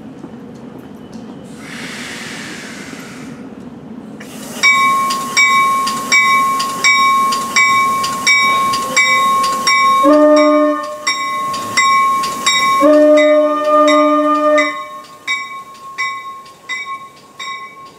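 Train horn with a multi-note chord sounds one short blast and then a longer blast, over a bell dinging steadily about twice a second, as the train at the platform gets ready to pull out. A brief hiss comes before the bell starts.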